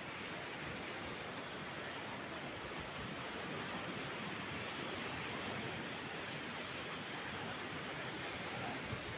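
Sea surf: a steady wash of waves breaking on the shore.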